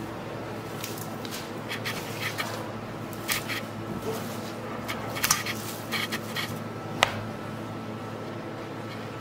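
Gloved hands handling pieces of seasoned raw sturgeon, with scattered soft knocks and clicks and one sharp clink against the stainless steel bowl about seven seconds in, over a steady low hum.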